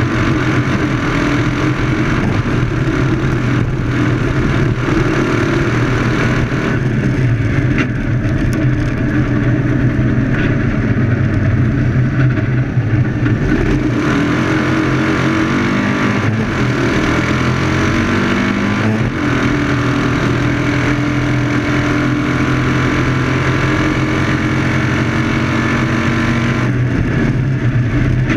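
Engine of a 2CV-class autocross car at racing speed, heard onboard from inside the cage: a loud, steady engine drone over the rush of wind and dirt. About halfway through its pitch drops and then climbs again as the car slows and speeds back up.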